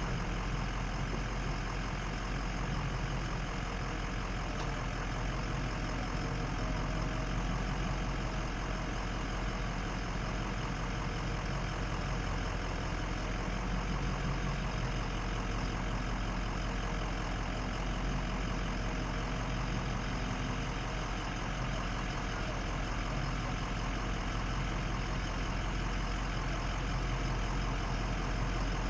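Ford F-250's Powerstroke V8 turbo-diesel engine running steadily, with no revving.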